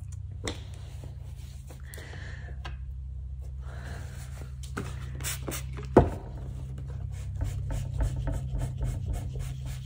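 Fingers rubbing hide glue into loose wood veneer, then a cloth wiping over the panel in quick strokes from about seven seconds in. One sharp knock about six seconds in, all over a steady low hum.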